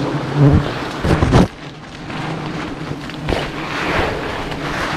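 Giant honey bees buzzing around the microphone over a steady rushing noise, with bees passing loudly close by several times, the loudest about a second in.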